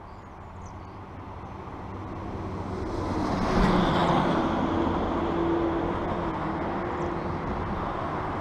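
School bus crossing a road bridge: engine and tyre noise build up over the first few seconds to their loudest about four seconds in, with a steady engine hum as it goes by.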